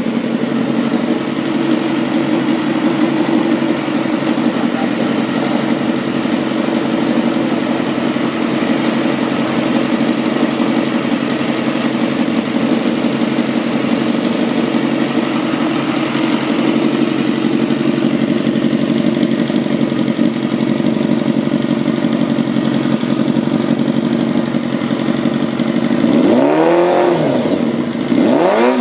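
Honda Jade 250's four-cylinder engine idling steadily through an aftermarket aluminium silencer, then revved twice near the end, the pitch rising and falling back each time.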